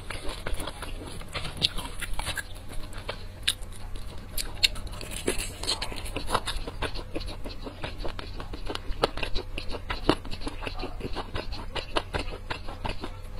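Close-miked crackling and crunching of crispy fried chicken being torn apart by hand and chewed, a dense run of sharp crackles.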